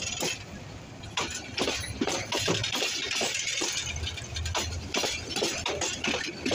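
Bangladesh Railway intercity passenger coaches passing close by, their wheels clattering and clinking irregularly over the rails, with a hiss rising through the middle seconds.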